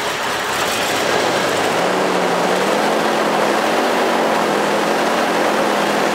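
Ford F-250's V8 engine idling steadily with a constant miss: only seven of its eight cylinders fire, a sign of a piston problem that also makes it burn oil.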